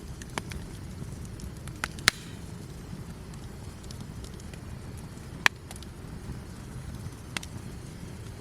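Wood campfire burning: sharp single pops of crackling wood over a low steady rumble, the loudest pops about two seconds in and about five and a half seconds in.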